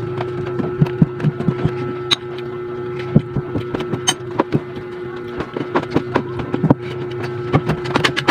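Close-up eating sounds: chewing and lip smacks, with fingers and a spoon working food on a plate, as many short irregular clicks. Underneath runs a steady mechanical hum.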